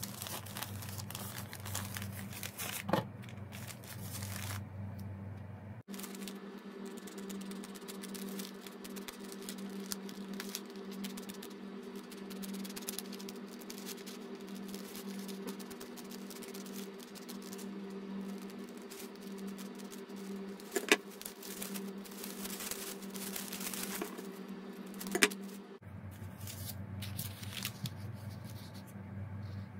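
Stiff kraft paper being handled, rustled and cut with scissors, over a steady low hum. Two sharp clicks sound about four seconds apart late on.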